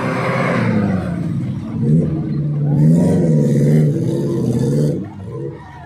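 Off-road vehicle's engine running and revving up and down under load, its pitch rising and falling, then easing off near the end.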